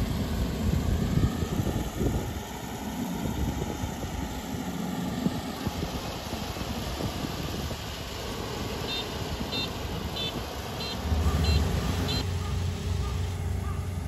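Kubota ER470 combine harvester's diesel engine running steadily as it cuts rice, a low, continuous machine drone.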